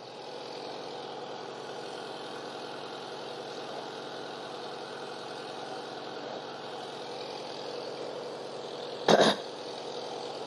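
Steady background hum made of many even tones, with one short, loud sound about nine seconds in.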